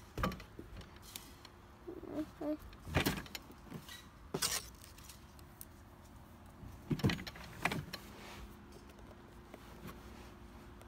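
Handling noise: a phone knocking and rubbing against the hard plastic seat of a child's backyard roller coaster car, about half a dozen separate knocks and clatters over a quiet background.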